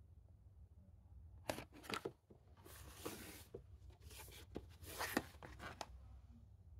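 Plastic Blu-ray cases being handled on a shelf: faint scattered clicks, taps and rustles, with longer scraping rustles about three seconds in and again about five seconds in.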